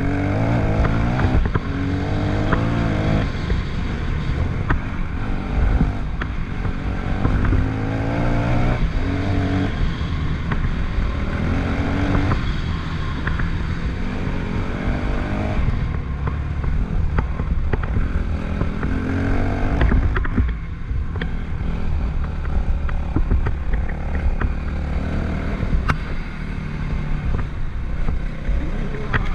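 Yamaha WR250F's single-cylinder four-stroke engine running as the dirt bike is ridden, its pitch rising again and again through the gears and falling back between. Scattered sharp clicks and knocks sound over it.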